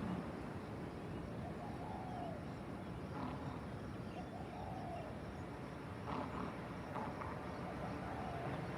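Steady low hum of distant city traffic, with a bird calling over it: a short note that rises and falls, heard about three times, and a few brief chirps.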